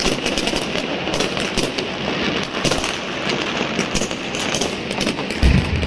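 Many fireworks and firecrackers going off at once, a dense, continuous crackle of rapid pops and bangs, with a deeper thump near the end.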